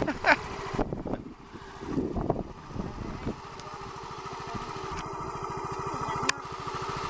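Small motor scooter's engine idling steadily, with a few short voice fragments in the first three seconds and a single sharp click about six seconds in.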